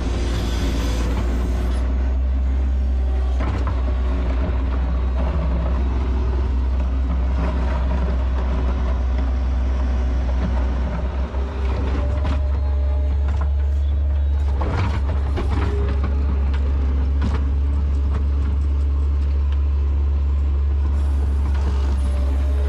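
New Holland L150 skid steer's diesel engine running steadily under load while plowing, with several short knocks and scrapes from the bucket working the snow and gravel on the driveway.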